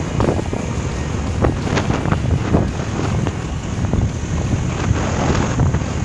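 Wind buffeting a phone microphone in gusts while riding a motor scooter, over a steady rumble of the moving vehicle.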